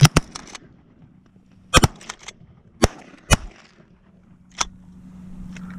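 Two hunters' shotguns firing at geese in a quick volley of about six sharp shots. There is a close pair right at the start, another pair near two seconds, two more about half a second apart, and a lighter shot near the end.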